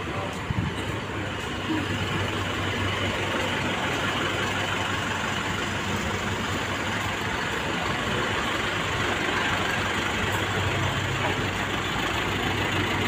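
Engines of parked shuttle vans idling, a steady low hum under a constant wash of background noise, a little stronger near the end.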